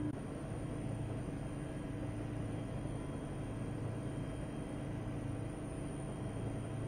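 Steady drone of an aircraft in flight heard from inside the passenger cabin: an even rushing noise under a low hum with a few constant tones.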